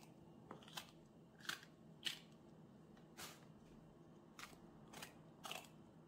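Knife cutting through a raw green pepper held in the hand, chunk by chunk: about six short, crisp, faint cuts roughly a second apart.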